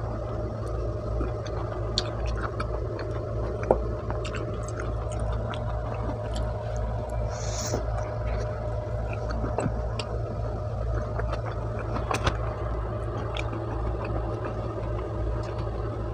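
Close-miked chewing and mouth sounds of someone eating pizza: scattered small clicks and smacks, with a brief hiss about halfway through, over a steady low hum.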